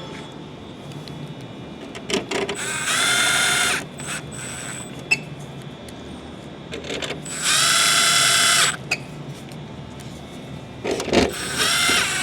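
Power drill-driver running Torx screws in, in three short runs of about a second each with a steady whine, and small clicks and knocks of handling the parts between them.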